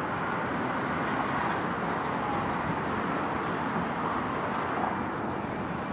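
Steady wash of distant city traffic noise rising from the streets far below, with no distinct events standing out.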